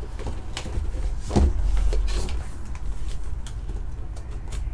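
Hands handling a cardboard trading-card hobby box and its foil packs: scattered scrapes, rustles and light knocks, the loudest about a second and a half in, over a steady low hum.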